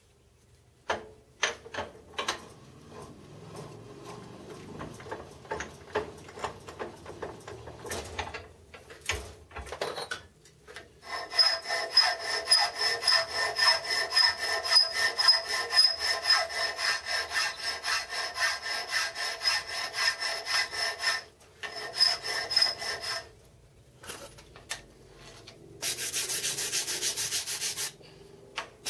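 Hand filing on the metal compound swivel of a Gingery milling machine. Irregular strokes come first, then a steady run of strokes, about two to three a second, with the part ringing. A short, denser rasping stretch comes near the end.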